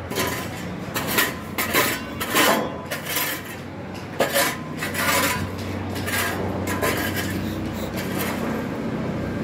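Footsteps scuffing and crunching down bare concrete stairs strewn with sand and grit, an irregular step roughly every half-second to second. A faint steady low hum runs underneath.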